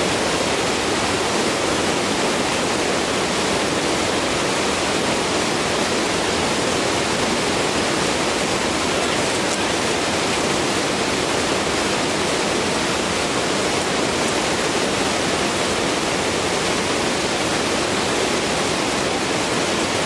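Steady, loud rush of a powerful mountain river in spate, white water surging around rocks and the legs of people wading through it.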